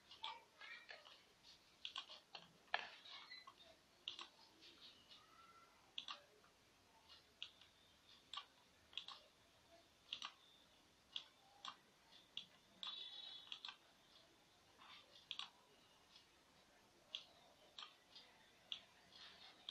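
Faint computer mouse clicks, coming irregularly about once a second, over a low hiss.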